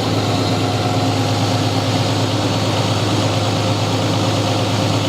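2004 Mazda MPV's V6 engine idling roughly and unevenly, shaking badly. The rough idle comes from a cylinder 4 misfire (code P0304).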